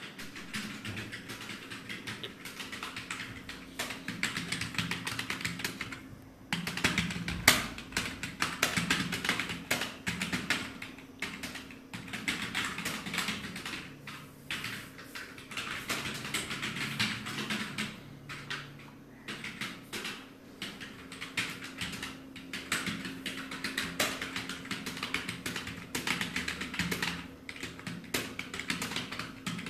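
Fast typing on a computer keyboard: rapid key clicks in quick runs broken by short pauses, with one louder clack about seven and a half seconds in.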